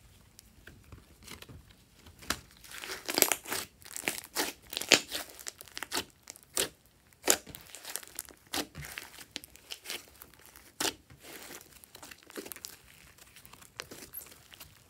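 Glossy slime being kneaded, stretched and squeezed by hand, giving sticky crackles and sharp little pops and clicks. They come thickest in the middle stretch and thin out toward the end.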